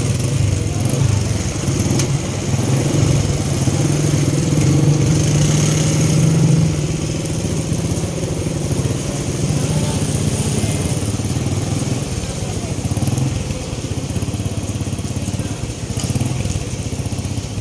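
An engine running steadily, its hum louder for the first few seconds and then easing, over a continuous hiss of heavy rain.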